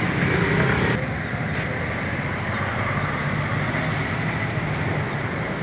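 Steady outdoor market background noise with road-vehicle traffic running through it, dropping slightly in level about a second in.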